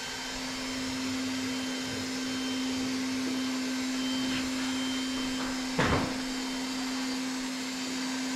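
A small electric blower motor running steadily, a continuous whir with a steady hum. About six seconds in there is a brief thump.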